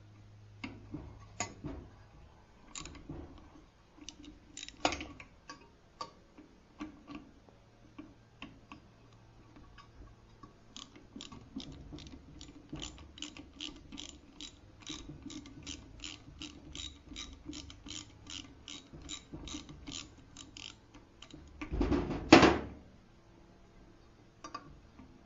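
Socket ratchet clicking as the bolts of a small engine's carburetor tube are loosened: scattered clicks at first, then an even run of about three clicks a second for about ten seconds. A loud metallic clatter comes about 22 seconds in.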